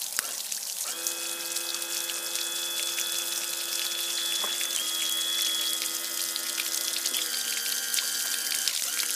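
Garden-hose water running through an outboard's lower unit and spraying out around the propeller, a steady hiss of water. Steady tones that change pitch every few seconds run beneath it.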